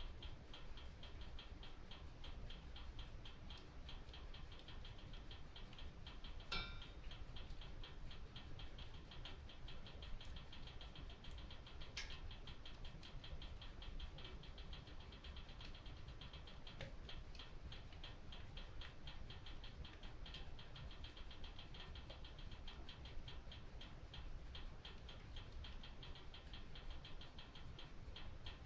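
Wood fire crackling faintly in a stone fireplace: a fast, dense patter of small crackles, with a sharper pop about six seconds in and another about twelve seconds in.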